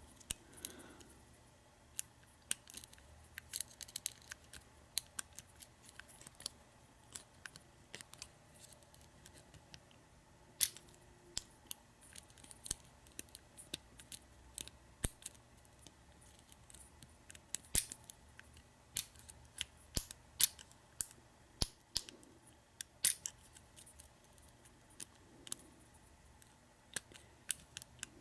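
Lock pick working the pin stack inside a Master Lock Pro Series 6327 padlock's cylinder: faint, scattered metallic clicks and ticks at irregular intervals as the pins are probed and set.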